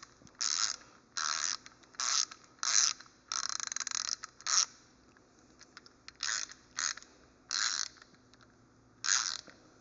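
SATA 72-tooth ratchet with a socket fitted, worked back and forth by hand. It gives about ten short runs of fast clicking, each under half a second, with one longer run of rapid clicks around three to four seconds in. The mechanism has just been oiled with a few drops of engine oil after coming nearly dry, and to the owner it sounds quieter.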